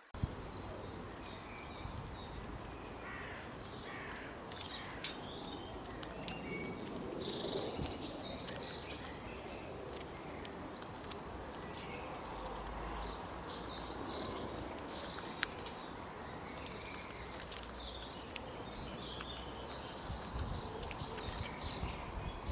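Forest birds chirping and calling in quick short phrases, heaviest in two bursts about a third and two-thirds of the way through, over a steady outdoor background hiss with a few sharp clicks.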